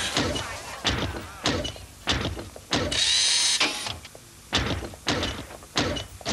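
Robot sound effects for a man in a robot suit walking: mechanical thunks about every half second, each with a short whir, and a brief hiss about three seconds in.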